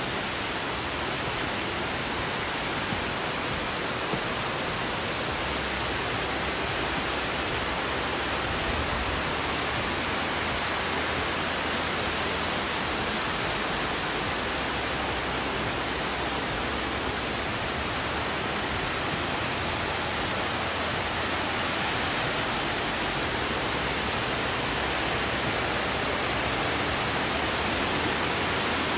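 Amicalola Falls' falling water: a steady, unbroken rush that holds at the same level throughout.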